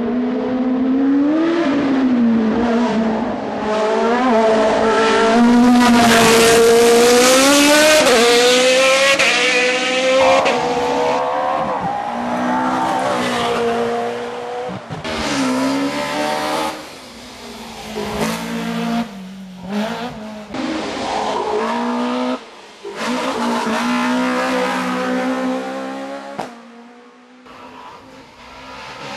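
Racing car engines at full throttle on a hill-climb, the pitch climbing and then dropping at each gear change. They are loudest about six to ten seconds in, and the sound falls away briefly several times later on.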